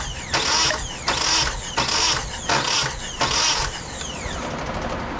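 Nissan KA24DE four-cylinder engine cranking on the starter for a compression test of cylinder 3, with an even pulsing rhythm of about one beat every three-quarters of a second. The cranking stops near the end.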